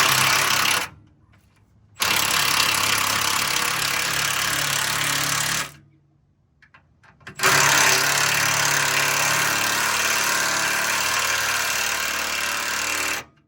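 Impact wrench hammering in three bursts, a short one at the start, then about four seconds and about six seconds long, driving the bolts of new sway bar links.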